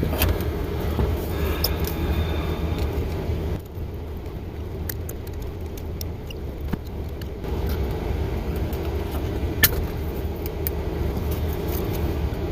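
Steady low mechanical hum, softer for a few seconds in the middle, with scattered light clicks and taps from a small metal thermostat being handled.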